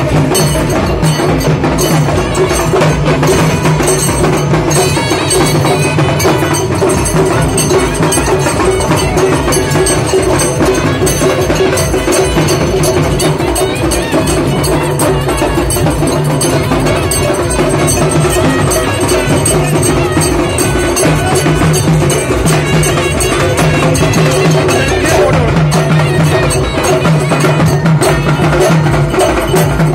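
Traditional folk drumming from a procession band: double-headed barrel drums (dhol) beaten with sticks in a fast, steady rhythm, with sharp clicking percussion on top.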